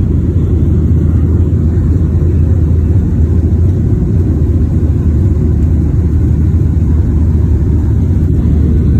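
Jet airliner cabin noise during the climb after takeoff: the engines and rushing air make a steady, deep rumble.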